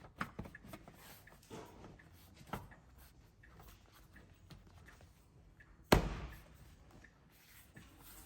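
Scattered light clicks and knocks, with one sharp, loud knock about six seconds in.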